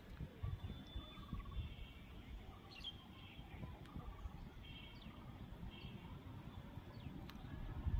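Faint open-air ambience with small birds giving short trilled calls now and then, over a low, uneven rumble with a few soft knocks.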